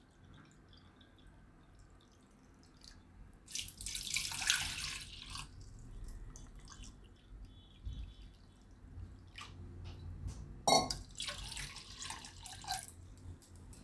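Water poured from a measuring cup into a stainless steel pot of jaggery, two pours of about two seconds each, the second near the end, splashing onto the jaggery and the pot's bottom.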